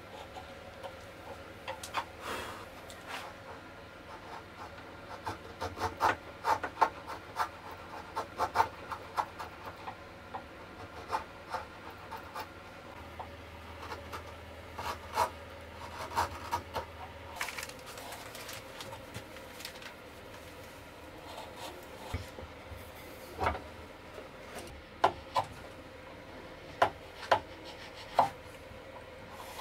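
Hand chisel paring cherry wood: short, sharp cutting clicks and scrapes in irregular clusters, with pauses between strokes.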